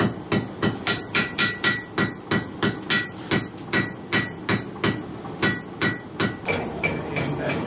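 Blacksmith's hand hammer striking a red-hot iron bar on an anvil in a steady rhythm of about three blows a second, each blow ringing. The hammering stops about six seconds in.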